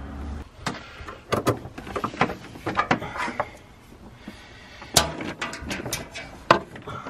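Irregular clicks, scrapes and rustles of electrical cables being handled and pulled through a bundle of wiring and plastic loom, with a quieter stretch in the middle.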